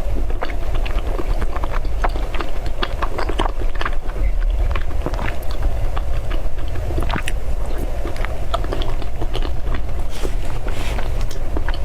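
Close-miked chewing of soft white mochi balls, with many short irregular mouth clicks and smacks, over a steady low hum.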